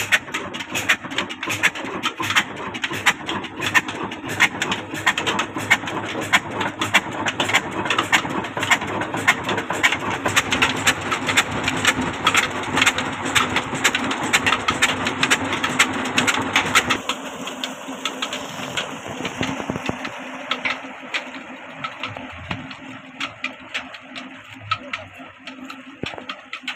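Ruston Hornsby stationary diesel engine running at a steady speed with a quick, even knocking beat, driving a tube-well pump by a flat belt. Water gushes from the pump's outlet pipe into a brick tank. About two-thirds of the way through, the beat becomes fainter.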